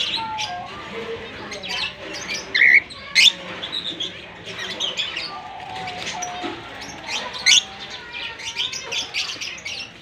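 Cockatiels chirping in a cage: a busy stream of short, high chirps from several birds, with a few louder, sharper calls about three seconds in and again past seven seconds.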